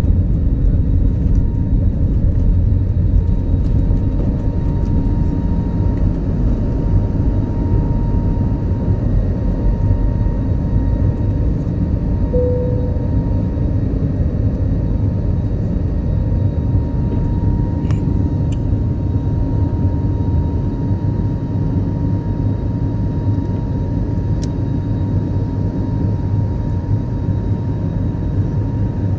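Airbus A320neo jet engines at takeoff thrust, heard inside the passenger cabin as a steady deep roar with a faint whine above it, through the end of the takeoff run, liftoff and initial climb. A short tone sounds about twelve seconds in.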